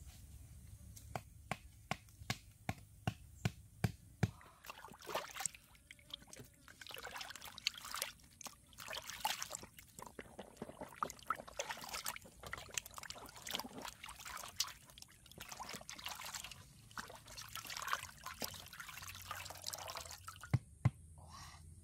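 A quick run of sharp knocks, then water sloshing and splashing as hands wash a plucked chicken in a basin of water.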